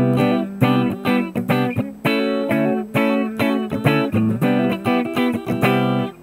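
Clean electric guitar played on a Jazzmaster-style guitar with a humbucker, through a Valeton GP200 LT modeler's Fender Twin Reverb amp model. It picks a quick run of single notes and chord tones, several plucks a second, each ringing briefly. The tone is the plain clean amp sound, with no compressor added yet.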